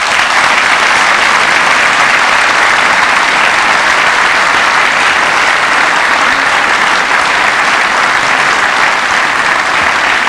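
A large audience applauding, loud and steady, starting all at once and holding at the same level throughout.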